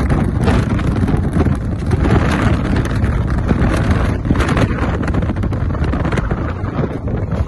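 Wind buffeting the microphone: a loud, continuous low rumble with crackles throughout.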